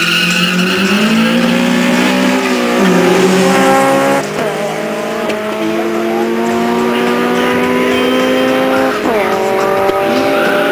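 Two race cars launching hard off a drag-strip start line and accelerating away at full throttle, their engines rising in pitch through each gear and dropping back at the upshifts, about three, four and nine seconds in.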